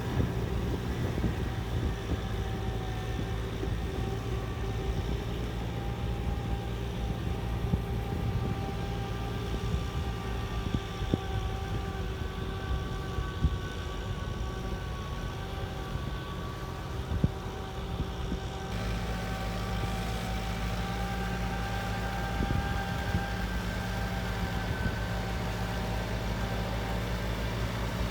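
Tractor engine running steadily, with a few short knocks scattered through it. The sound changes abruptly about two-thirds of the way through.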